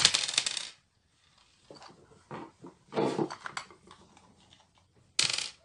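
Hot glue gun's plastic housing handled and prised apart once its screws are out: irregular plastic clicks, knocks and rubbing, loudest just at the start and again about five seconds in.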